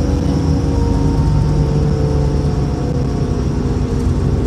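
City transit bus's engine and drivetrain running as it drives along, heard from inside the passenger cabin: a steady low rumble with a whine that drifts slowly lower in pitch.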